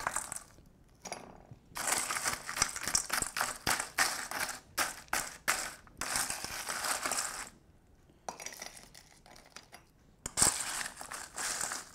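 Ice cubes being scooped with a spoon from a metal bowl and dropped into a glass mug: rattling, clinking and crunchy scraping in several spells, the longest lasting several seconds, with short pauses between.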